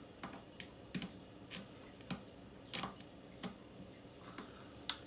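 A series of small, irregular clicks and taps, about nine in all, from a hand screwdriver with interchangeable blades being handled against the metal parts of a pellet gun.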